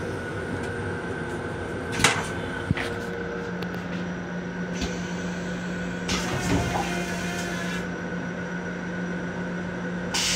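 Steady hum of the M7 railcar inside its small restroom, with a sharp plastic clack about two seconds in and a lighter one shortly after as the toilet seat is set down.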